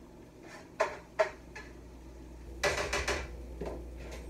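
Dishes and a utensil clinking as fried rice is plated: two sharp clinks about a second in, then a short clatter of plate and pan near three seconds.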